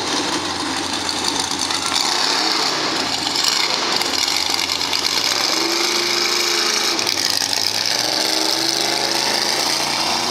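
Lifted mega truck's engine running hard as it drives the dirt course, its pitch rising and falling with the throttle.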